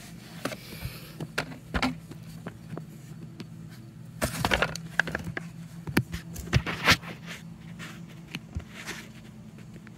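Handling noise: scattered clicks and knocks of hands and the phone against a cordless leaf blower's plastic housing, with a busier cluster about halfway through, over a faint steady low hum.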